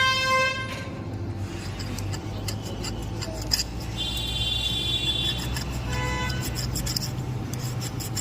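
A vehicle horn held and cut off under a second in, over a steady low rumble of engines; two more short horn-like tones sound a few seconds later.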